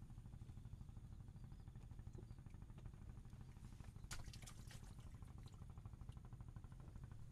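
Near silence: a faint, steady low rumble of outdoor ambience, with a few light ticks and a brief cluster of sharp clicks about four seconds in.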